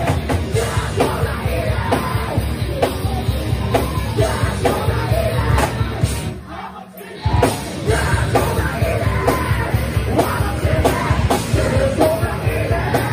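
Loud background rock music with shouted vocals over a steady drum beat, dropping out briefly about six seconds in.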